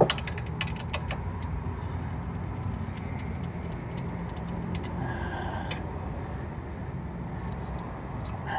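Small metal clicks and clinks of a hand wrench and nut on the alternator's wiring terminal: a quick run of them at the start and a few more about five to six seconds in, over a steady low rumble of traffic.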